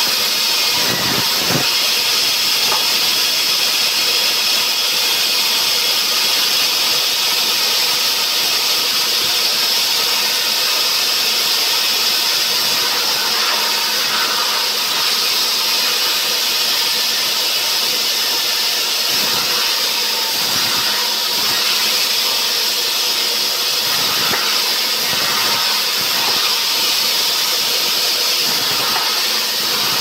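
Large vertical band saw running and cutting lengthwise through a pine log, a loud steady hiss.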